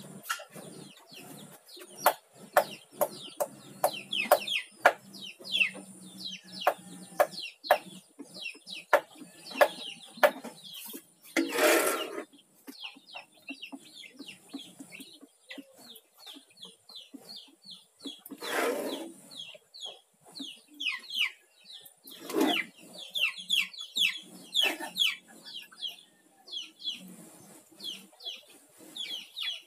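Chickens clucking and chirping: many short, quick calls throughout, with scattered sharp clicks and three brief hissing bursts.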